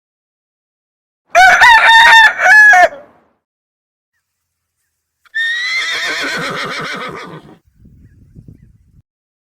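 A rooster crowing once, a loud cock-a-doodle-doo in a few stepped syllables with the last held. A few seconds later a quieter, harsher animal call wavers and falls, trailing off into faint low sounds.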